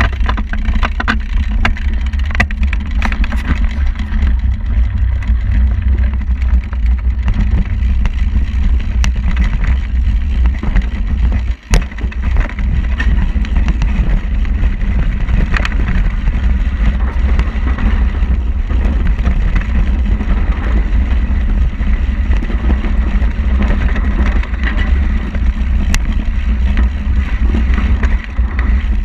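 Mountain bike riding fast down a dirt forest trail, heard from a handlebar-mounted camera: heavy wind rumble on the microphone over tyre noise, with sharp rattling knocks as the bike hits bumps.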